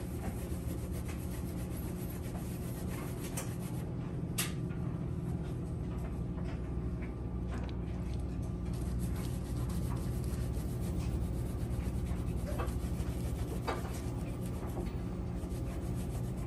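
Cloth rag rubbing back and forth on a car's painted rear panel, scrubbing off leftover emblem adhesive, with a few short scratchy ticks. A steady low hum runs underneath.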